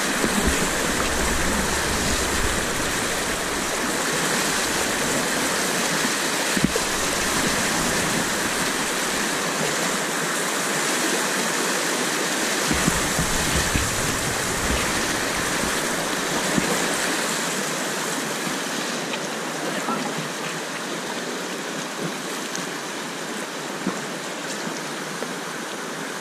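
River rapid rushing steadily around a whitewater kayak, with water splashing over the bow and a few sharper splashes from paddle strokes; the rush eases a little in the last third.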